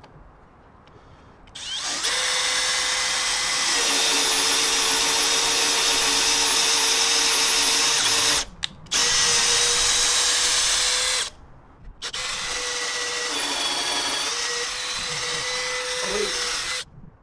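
Handheld electric drill with an extra-long drill bit boring through a mast beam and its supporting block. It runs three times, about seven, two and five seconds long, with short stops between. Its whine drops a little in pitch a couple of seconds into the first and last runs.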